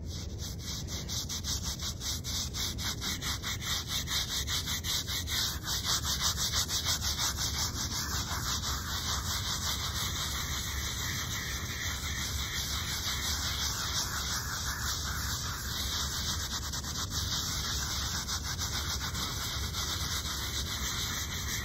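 Handheld scrub brush scrubbing the face of an old stone headstone in quick, steady back-and-forth strokes, a continuous rough rubbing.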